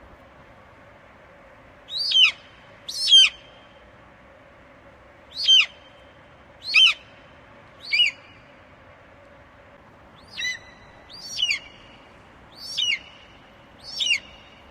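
Eagle calling: about nine sharp, high-pitched cries, each falling steeply in pitch, repeated at irregular intervals of one to two seconds.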